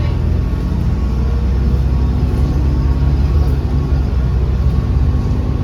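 Volvo B7RLE bus's six-cylinder diesel engine running steadily under way, with its ZF automatic gearbox.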